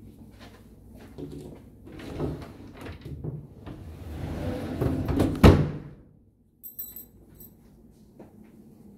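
Wooden wardrobe sliding door running along its track, getting louder, then knocking against its stop about five and a half seconds in, followed by a few light clicks.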